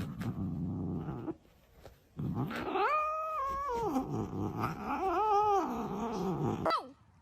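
A pet animal growls low for about a second, then, after a short pause, gives two long wavering yowls that rise and fall in pitch, cut off suddenly near the end.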